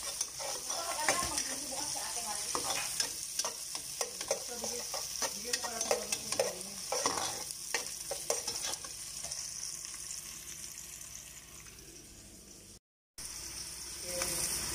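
Sliced onions sizzling as they sauté in oil in a metal pot, with a utensil scraping and clacking against the pot as they are stirred. The stirring stops about nine seconds in and the sizzle fades, cuts out briefly near the end, then comes back louder.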